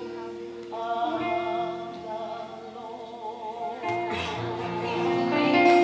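Gospel song: a singer holds long notes with vibrato over instrumental backing. The music swells louder over the last couple of seconds as more instruments come in.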